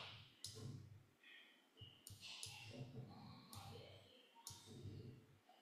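Faint computer mouse clicks, about five spread over a few seconds, against near-silent room tone.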